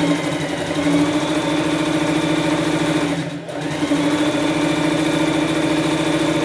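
Domestic sewing machine stitching at speed, its motor whirring up to speed in the first second, easing off briefly a little past halfway and then running steadily again.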